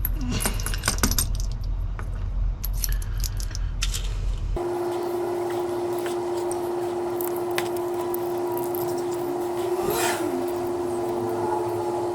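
Small metal clicks and clinks of lock cylinders and keys being handled during rekeying. About four and a half seconds in, the sound changes abruptly to a steady hum with only a few faint clicks.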